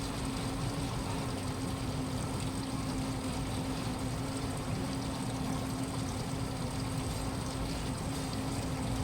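Washing machine running mid-cycle: a steady motor hum over an even, constant rush of noise, with no pauses or knocks.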